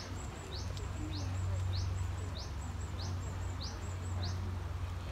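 A small bird calling over and over, each call a quick rising high note followed by a short, even higher note. The calls repeat evenly, about three every two seconds, and stop about four seconds in. A steady low rumble runs underneath.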